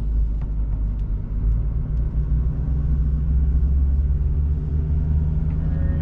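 Steady low rumble of a car's engine and tyres, heard from inside the cabin while driving on a paved road. Music comes in faintly at the very end.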